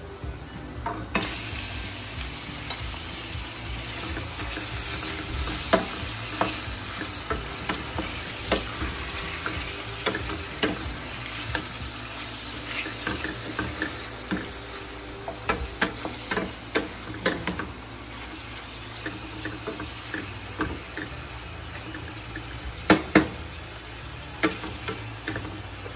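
Garlic and raw shrimp sizzling in butter in a stainless steel frying pan. The sizzle grows louder about a second in, and a wooden spatula scrapes and knocks against the pan many times as the shrimp are stirred.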